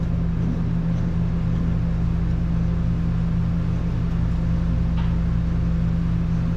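A steady, unchanging machine hum with a constant low pitch and a rumble beneath it, with a faint click about five seconds in.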